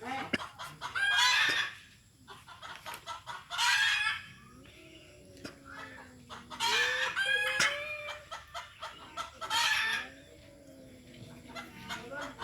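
Cats in a fight: long, low yowls that waver up and down, broken every two to three seconds by loud, shrill screeching calls.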